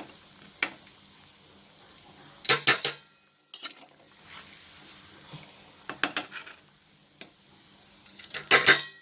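Ladle scraping and clattering against a pan while stirring frying chicken and spice powder, in bursts about two and a half seconds in, around six seconds and loudest near the end, over a steady sizzle. The stirring keeps the pounded chilli-garlic powder from sticking to the bottom of the pan.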